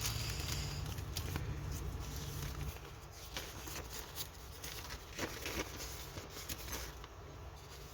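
Soft rustling and scattered light clicks of a diamond painting canvas and its small plastic bags of drills being handled, over a low steady hum that drops about three seconds in.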